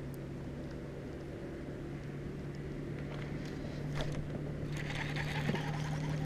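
A small boat's motor hums steadily, low and rising slightly in pitch. About five seconds in there is a short burst of splashing water.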